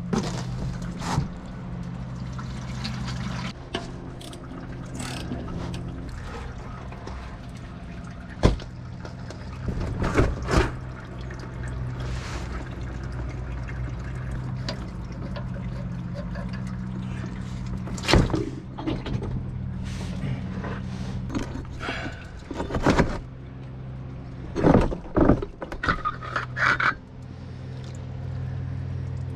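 Engine oil draining from a truck's oil pan and pouring into a bucket, with sharp metal clanks and knocks as the oil filter is taken off and handled, several of them between about 8 and 27 seconds in. A steady low hum runs underneath.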